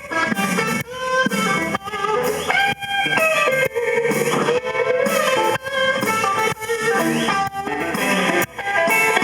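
Blues band playing an instrumental passage, a guitar leading with bent and sliding notes over the band.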